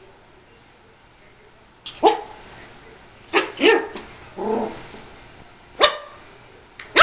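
Yorkshire terrier puppy barking: about five short barks, starting about two seconds in, two of them in quick succession and one longer and lower.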